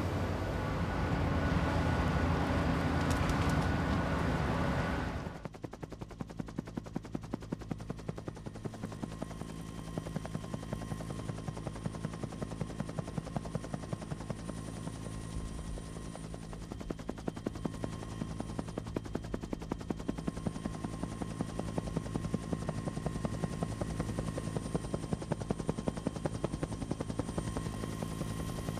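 A slag pot tips and dumps glowing slag, with loud rushing noise and a heavy machine hum. About five seconds in the sound cuts to a quieter, fast and even chopping pulse over a steady hum.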